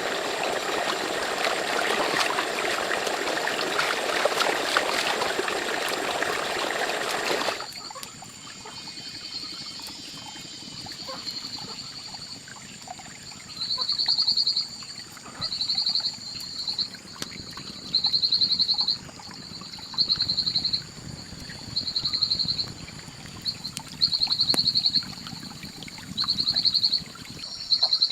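Running water for about the first seven seconds, then an abrupt change to quieter ambience: a steady thin high whine, and a short rapid high-pitched trill repeated about every two seconds.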